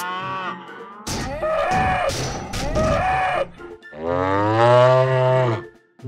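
Cartoon sound effects: a noisy stretch carrying a tone that rises and falls twice, then one long, low animal call about four seconds in.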